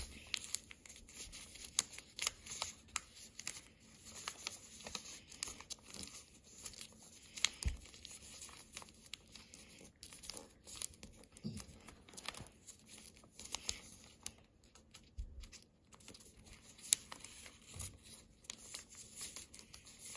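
A sheet of paper crinkling and rustling as fingers fold it and press in the creases of a paper airplane, in a string of small crackles.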